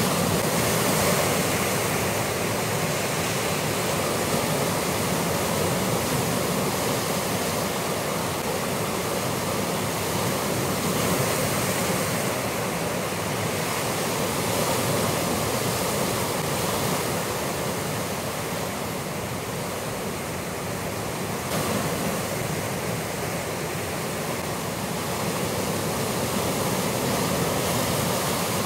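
Sea surf breaking and washing against a rocky shore: a continuous rushing noise that swells and eases gently.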